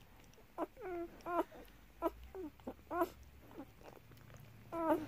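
Newborn German Shepherd puppies squeaking and whimpering while they nurse at their mother's teats: a string of short, high calls, some falling in pitch, the last one near the end.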